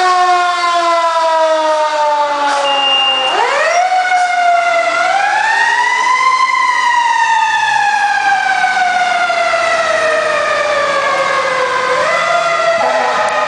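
Fire engine siren wailing as the engine pulls out of the station: the pitch falls slowly, climbs sharply a little over three seconds in, sinks gradually for several seconds, then climbs again near the end.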